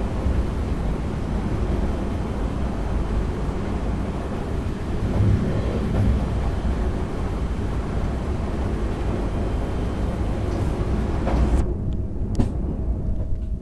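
NS DDZ double-deck electric train running at speed, a steady rumble of wheels on rail heard inside the driver's cab. About twelve seconds in the higher hiss drops away abruptly, leaving the low rumble and a faint steady whine.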